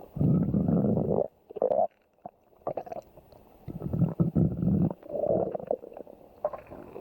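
A person's stomach growling: a run of rumbles and gurgles with short quiet gaps. The longest rumbles come at the start and again about four to five seconds in.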